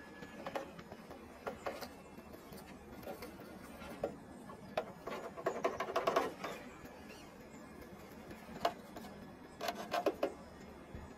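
Traxxas TRX-4 scale RC crawler working over rock: short spells of whirring, clicking drivetrain gears, with clicks and knocks as the tyres and chassis grip and scrape on stone. The busiest, loudest stretch comes around the middle, with another cluster near the end.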